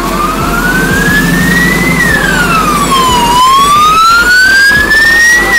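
Emergency vehicle siren in a slow wail: the pitch rises for about two seconds, falls for about a second, then rises again.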